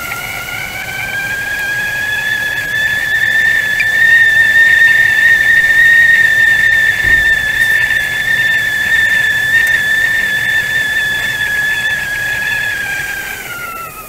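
Teapot whistling at the boil: one continuous high whistle that climbs a little in pitch and loudness over the first few seconds, holds steady, then starts to drop in pitch and fade near the end.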